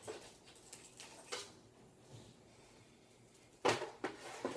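Household objects being handled: a few faint clicks, then a louder clatter of knocks and rustling about three and a half seconds in, like a drawer or door being worked.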